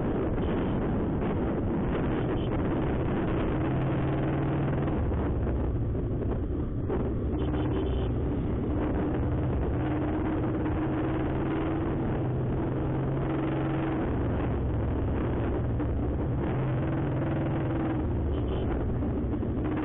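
Honda SP125 motorcycle ridden at road speed: its single-cylinder engine running steadily under a heavy rush of wind and road noise, easing briefly about seven seconds in.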